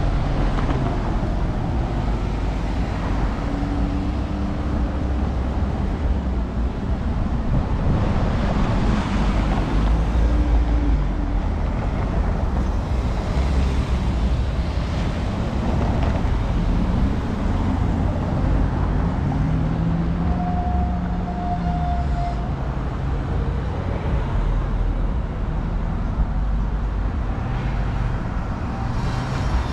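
Road traffic at a city intersection: cars and a van idling in a queue and driving past, with a steady low rumble of engines and tyres and engine hum that rises and falls as vehicles move off.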